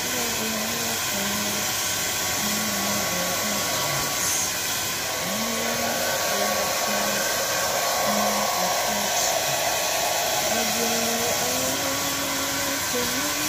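Handheld hair dryer blowing steadily while drying a small dog's fur, its airflow noise constant and unbroken.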